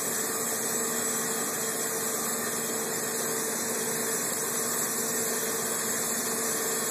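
Steady hum of a running motor, with a constant low drone and even hiss that does not change.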